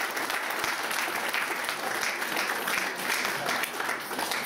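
Audience applauding, many hands clapping at once in a steady patter that begins to thin near the end.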